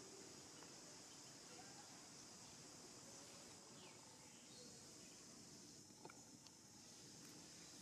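Near silence: faint outdoor ambience with a steady high buzz of insects and a few faint ticks.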